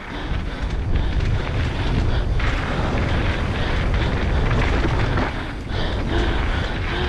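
Enduro motorcycle engine running while being ridden, mixed with heavy wind buffeting on the helmet camera's microphone. The level dips briefly about six seconds in.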